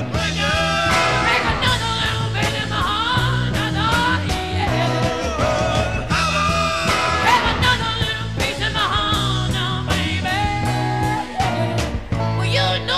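Background music: a song with a steady drum-and-bass beat and a sung melody.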